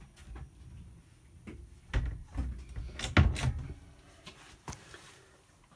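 A few knocks and clunks as a wooden cabin door is handled and passed through, the loudest a little after three seconds in.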